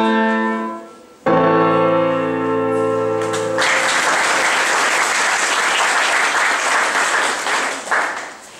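Grand piano playing the closing chords of a piece: one chord dies away, then a final chord with a deep bass is held for about two seconds. As it stops, an audience breaks into applause.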